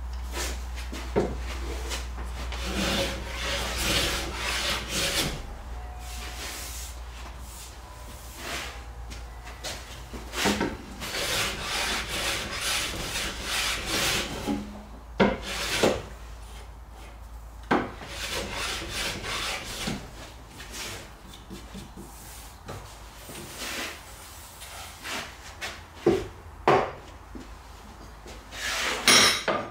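Hand plane shaving the edges of a hardwood frame in repeated hissing strokes, each a second or two long with short pauses between. Sharp knocks come as the plane is set on and lifted from the wood, with a few more near the end as tools are handled on the bench.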